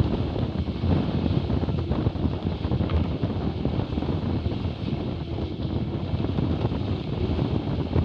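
Steady, gusty wind buffeting on the microphone, mixed with water rushing and spraying past the hulls of a Hobie 20 catamaran sailing at speed.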